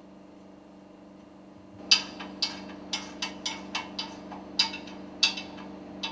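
Sharp metal clicks and clinks, irregular and about a dozen of them starting about two seconds in, the first the loudest, as the halves of a metal work table are fitted together around the engine's piston rod. A steady low hum runs underneath.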